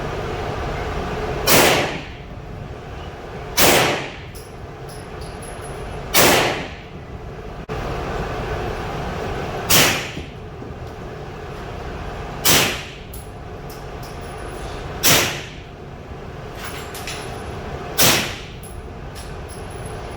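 Grand Power Stribog carbine fired through a sealed carbon-fibre suppressor: seven single suppressed shots, each a sharp report with a short tail, spaced about two to three seconds apart, over a steady background noise.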